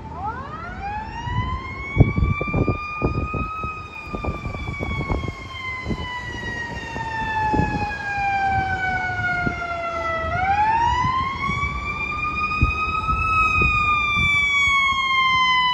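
Fire engine siren wailing on approach, getting louder. It runs through two slow cycles, each rising quickly and then falling slowly. Scattered low thumps come through in the first half.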